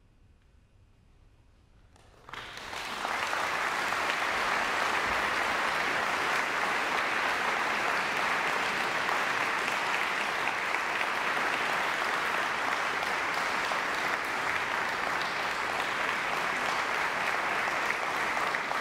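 Audience applauding, breaking out suddenly about two seconds in after a brief hush, then holding steady.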